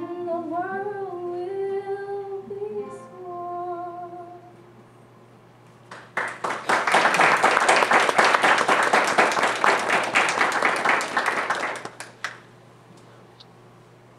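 A woman's voice sings the last held notes of a song, ending about four seconds in. After a short pause the audience applauds for about six seconds.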